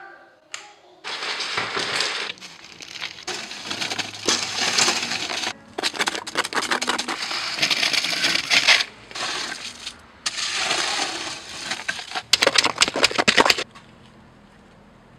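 Wet concrete mix being tipped and scraped out of a mixing tub into a plastic storage bin, in repeated gritty pouring and scraping bursts a second or two long. Near the end comes a quick run of sharp knocks.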